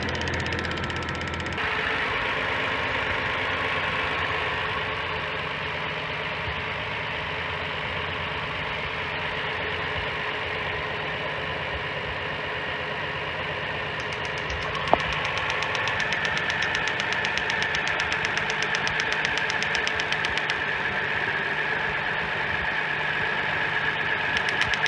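Hyundai Santa Fe 3.3-litre V6 engine running with a loud, rapid ticking from the engine bay, which the owner traces to a faulty evaporative-emission purge control valve. A single sharp click about 15 seconds in.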